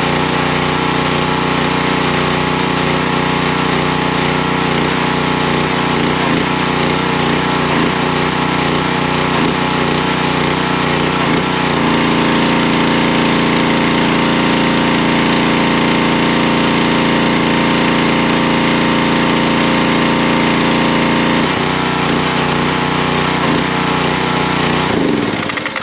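Small petrol engine of a pressure washer running steadily, its note heavier for about ten seconds in the middle. Near the end the engine winds down and stops.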